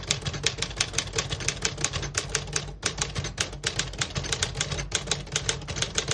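A 1951 Smith-Corona Silent manual portable typewriter being typed on at a steady pace, about seven keystrokes a second, with a couple of brief pauses.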